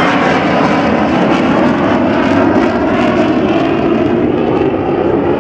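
Low-flying jet aircraft's engines, a loud steady roar as it passes.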